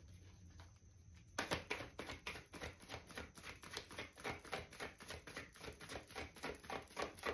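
Tarot cards being shuffled by hand: a steady run of light card clicks, about five a second, starting about a second and a half in.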